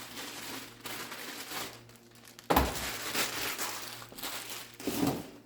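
Packaging crinkling and rustling as it is handled, with a louder stretch of rustling that starts sharply about two and a half seconds in.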